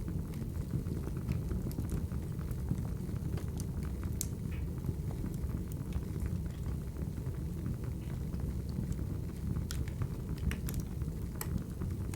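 Crackling wood fire: a steady low rumble of flames with scattered sharp pops and crackles.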